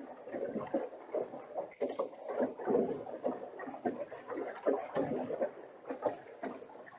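Rowing boat on a river: oars dipping and water sloshing against the hull in irregular splashes and knocks.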